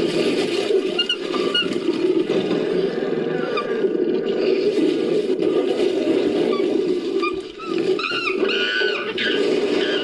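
Primal creature-call sound effect layered from ape, monkey and monster vocal recordings. A low, rough call runs on with a short dip a little after seven seconds, and high wavering calls that rise and fall come in near the end.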